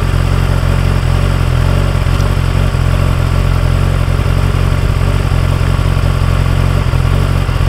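Honda CB1000R's inline-four engine idling steadily.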